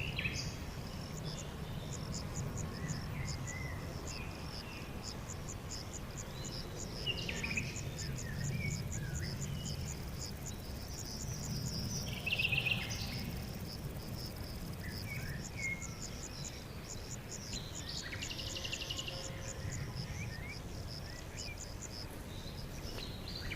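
Crickets chirping in a fast, even pulsing rhythm that drops out briefly midway, with short scattered bird calls and a couple of brief buzzy trills, over a steady low rumble of background noise.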